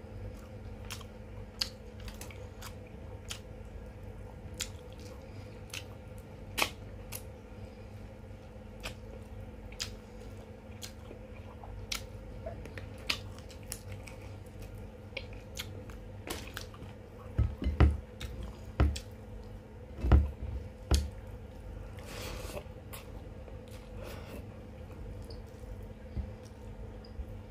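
A person eating chicken machboos close to the microphone: quiet chewing with many sharp, short clicks and smacks, and a few louder low thumps about two-thirds of the way through, over a steady low hum.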